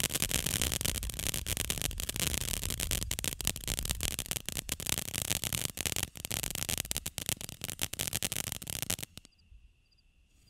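Mesmerize firework fountain spraying sparks with a steady hiss and a dense crackle of many rapid pops, cutting out about nine seconds in.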